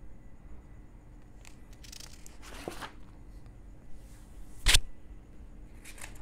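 Paper sheets being handled and turned in a ring binder: a rustle of paper, a sharp click a little past the middle, and more rustling near the end.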